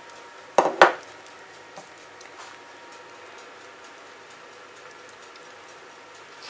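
An empty drinking glass set down on a kitchen countertop: two quick knocks in a row just over half a second in, then a few faint clicks over a low steady hum.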